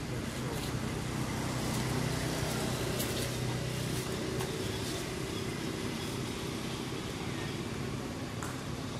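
Steady low motor hum, like an engine running nearby, with a few faint clicks over it.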